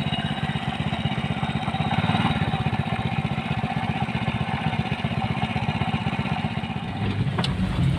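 A vehicle engine running steadily with a fast, even low pulse. Near the end the engine sound changes.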